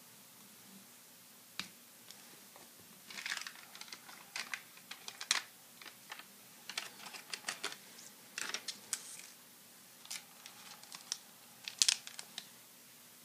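Close-up rustles and small clicks of trading cards being handled, then the crinkle of a foil-wrapped 1991-92 Upper Deck card pack being turned over in the hands. The noises come in scattered handfuls with short gaps, and the sharpest cluster comes near the end.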